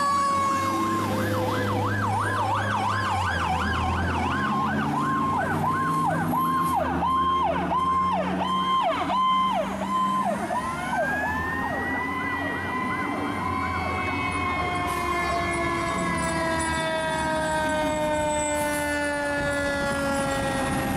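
Fire trucks responding with sirens: a fast yelping siren at first, then a two-tone hi-lo pattern, and from about ten seconds in a siren that wails up and winds slowly down in pitch. Truck engines run underneath.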